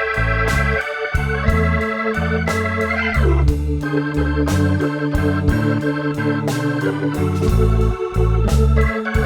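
Blues instrumental background music: a walking bass stepping note to note under held keyboard chords and a steady drum beat, with one note sliding down about three seconds in.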